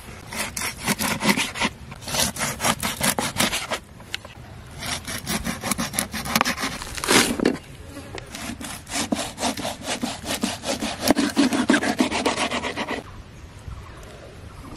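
Knife blade scraping along a garfish on a wooden board, in quick rasping strokes. The strokes come in four spells and stop shortly before the end.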